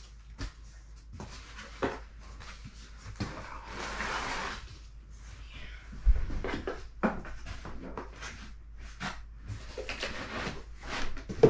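Unboxing handling sounds: packaging rustling, with scattered knocks and clicks as the box and its contents are moved, and one heavy thump about six seconds in.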